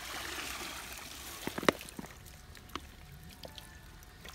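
Water pouring and trickling off a woven basket scoop as it is lifted out of a shallow pond, dying away after about two seconds. Sharp knocks and clicks come through it, the loudest a little under two seconds in, with a few fainter ones later.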